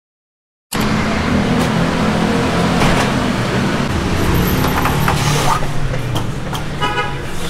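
Steady road-traffic noise with engines running, starting abruptly about a second in after a moment of silence.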